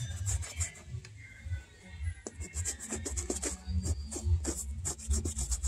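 Toothbrush bristles scrubbing the suede upper of a boot in quick, irregular scratchy strokes, over background music with a steady low beat.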